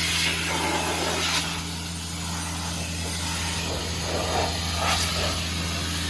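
Compressed air hissing from an air-hose blow nozzle in short gusts, blowing chaff and dirt off a hay mower, over the steady hum of a running engine.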